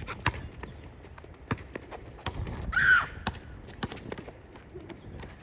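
A basketball bouncing on a court with footsteps: irregular sharp thuds a fraction of a second to a second apart, and a short high squeak about three seconds in.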